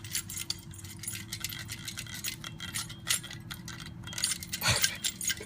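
Old, faulty alternator moved by hand, giving off a rapid, irregular metallic clicking and rattling from inside: the noise of a bad alternator.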